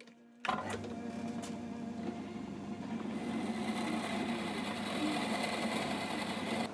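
Small metal-turning lathe switched on about half a second in and then running steadily, its spindle turning a phosphor bronze bar in the chuck, with a steady motor hum.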